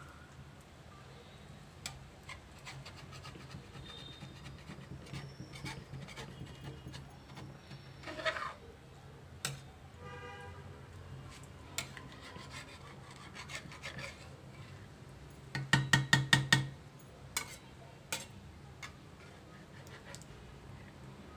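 Metal spatula scraping and stirring grated carrots in milk in a large iron kadhai, with scattered clicks of the spatula against the pan. About three-quarters of the way in come a quick run of about six loud knocks.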